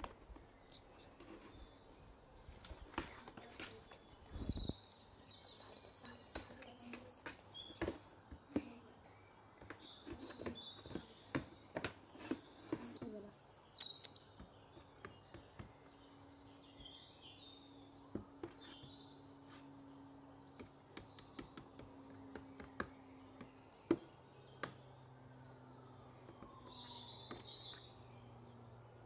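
Small birds chirping, with rapid high trills that are loudest about four to eight seconds in and sparser calls later, over scattered sharp clicks and taps of the paper bag being handled.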